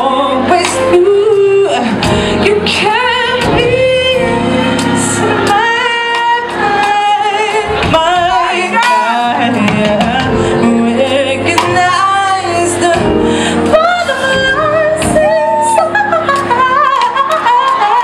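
Live R&B performance: a female singer sings wordless, wavering vocal runs with heavy vibrato over the band's sustained chords.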